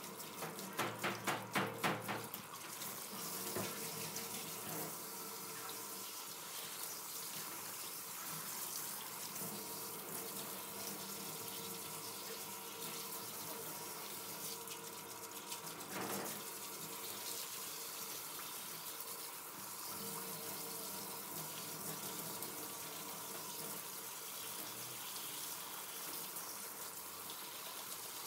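Water running steadily from a shower hose onto a wet dog's coat and into a stainless steel sink. Near the start comes a quick rhythmic run of louder strokes as hands scrub the lather, and a single knock about halfway through.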